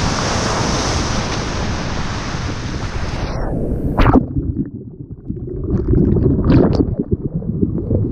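Breaking surf rushing around a sea kayak, with wind buffeting the microphone. About three seconds in, the sound suddenly turns muffled as whitewater washes over the camera, with a sharp knock just after and low churning with a few clicks.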